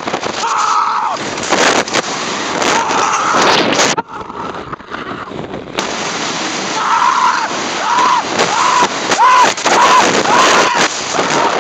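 Wooden roller coaster train running at speed, a loud rushing roar of wheels on track and wind over the microphone, with riders screaming. The noise drops for a couple of seconds near the middle while the train is in the tunnel, then a string of screams rises over it toward the end.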